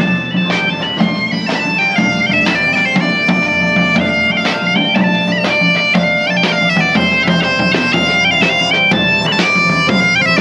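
Bagpipe playing a lively tune over its steady drone, with a large and a small drum beating time along with it.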